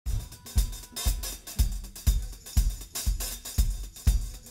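Intro music with a drum-kit beat that starts suddenly: a bass drum about twice a second, with hi-hat and cymbal hits between.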